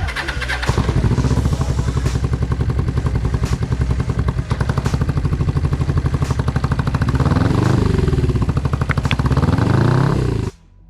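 Suzuki GSE 500's parallel-twin engine running after its service, a steady fast pulsing from about a second in, revved up and back down twice near the end before the sound cuts off abruptly.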